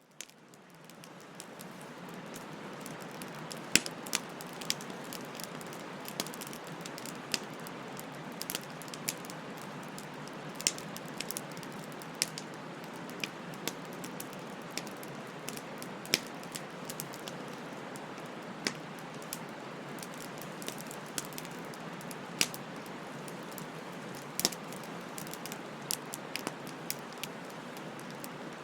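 Bonfire burning: a steady hiss of flames with irregular sharp pops and crackles of the wood, fading in from silence over the first two seconds.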